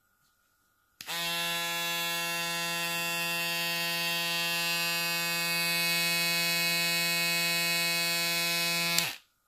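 Stylecraft Rebel foil shaver switched on about a second in, its motor running with a steady, even-pitched buzz for about eight seconds before being switched off.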